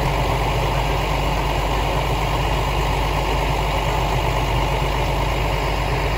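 JR Kyushu KIHA 220 diesel railcar's engine idling steadily while the railcar stands at the platform.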